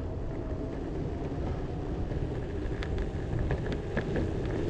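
Possway T3 electric skateboard rolling along, with a steady wheel rumble and a faint steady motor whine. Scattered light clicks come through the rumble.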